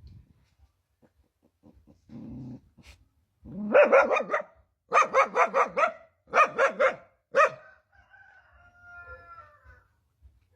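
Dog-like barking: several loud runs of quick yaps in a row, followed by a fainter, high, wavering whine.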